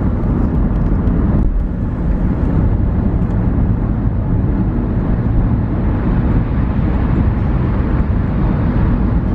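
A car driving at speed: steady tyre, road and engine noise, heard from inside the cabin.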